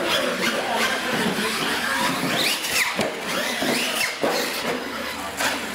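Brushless electric motors of Losi LMT radio-control monster trucks whining, rising and falling in pitch as they speed up and slow down, with a couple of sharp knocks about three and four seconds in.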